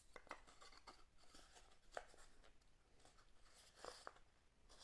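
A few faint clicks and taps of small laser-cut wooden pieces being handled and fitted together by hand: a couple just after the start, one about two seconds in and a close pair near the end, with quiet room tone between.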